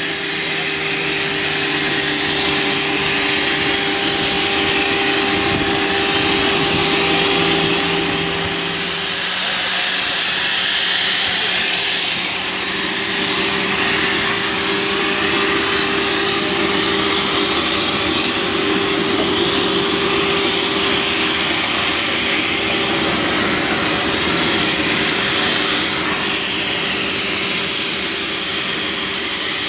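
Portable on-site machining rig cutting a large steel ring surface: a steady, loud cutting hiss over a constant machine hum.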